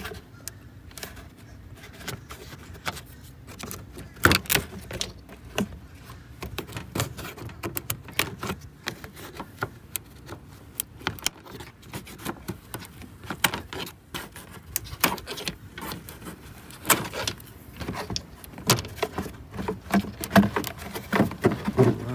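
Irregular clicks, taps and small plastic snaps of a hand tool working plastic push-pin clips and trim pieces loose from an SUV's radiator core support cover.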